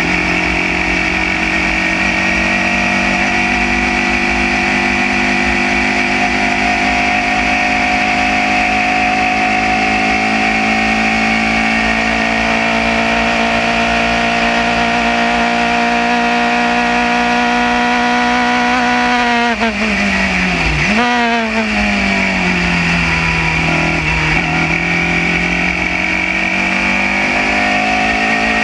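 Formula Junior single-seater race car's engine heard onboard, held at high revs along a straight with the pitch creeping up. About two-thirds of the way through, the revs fall sharply in steps with a quick blip as the driver brakes and downshifts for a corner, then the engine pulls and the pitch climbs again on the exit.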